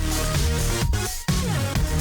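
Background music: electronic dance track with a heavy bass line and a steady beat.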